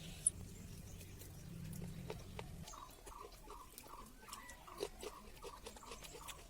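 Faint animal calling: a run of short, evenly repeated notes, about three a second, starting about two and a half seconds in, with scattered light clicks and rustles.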